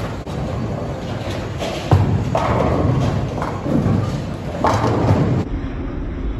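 Bowling alley sounds: a sharp thud about two seconds in, over a steady low rumble and recurring clattering rushes, typical of bowling balls landing and rolling down lanes into pins.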